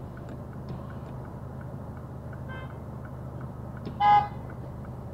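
A car horn sounds one short, loud blast about four seconds in, with a fainter, shorter horn just before it, over the steady low hum of the car waiting in traffic. The honking tells a driver sitting at a red light in a give-way lane to move on.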